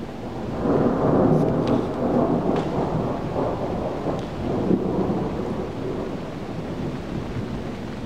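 Thunder rumbling: it swells within the first second, peaks, then slowly rolls away, with a steady hiss of rain underneath.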